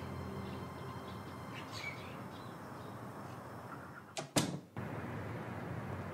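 Two sharp knocks a fraction of a second apart, a door banging shut, over quiet steady room tone; after it a steady outdoor street hum.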